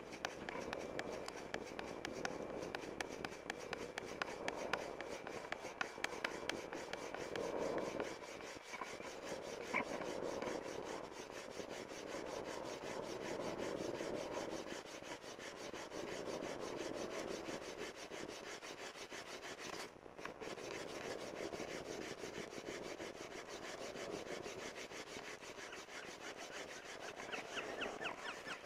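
Bamboo fire saw: a bamboo piece rubbed rapidly back and forth across a notched bamboo section, a steady dry scraping that goes on with only a couple of brief pauses, the friction that builds heat and dust toward an ember.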